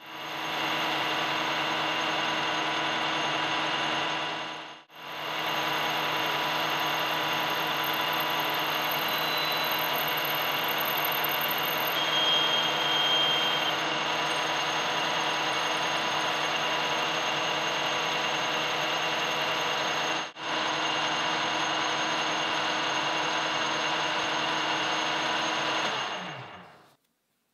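Metal lathe running while a small metal rod is turned with a carbide insert tool: a steady machine hum with several constant whining tones. It drops out briefly twice and dies away near the end.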